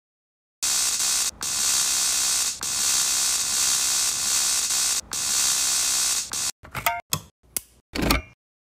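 Electrical arcing sound effect: a loud, steady hiss that starts about half a second in and cuts out briefly three times, then breaks up into a handful of short crackling bursts near the end.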